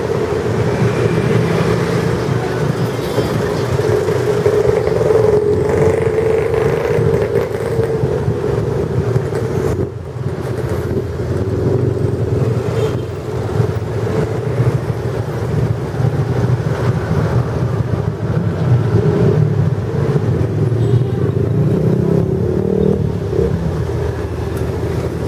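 Street traffic: motorcycles and cars passing close by, their engines running steadily. The sound briefly dips about ten seconds in.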